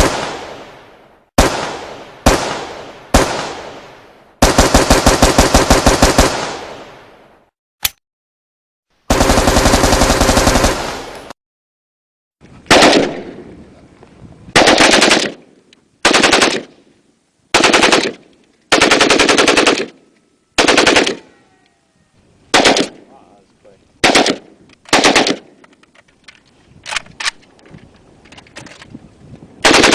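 AK-47 Kalashnikov rifle firing: a few single shots, a long full-auto burst of about two seconds, another single shot and a second long burst that cuts off abruptly. In the second half comes a steady run of short bursts about a second apart, each with an echoing tail.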